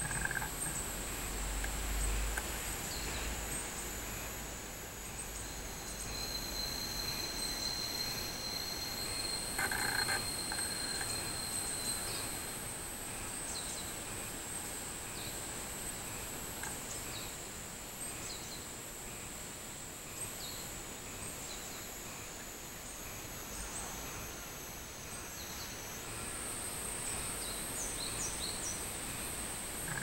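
Cicadas singing in trees, including the robust cicada (minminzemi): a steady, shrill, high-pitched drone that shifts pitch twice, with a second, lower steady tone for several seconds in the first half and scattered short chirps.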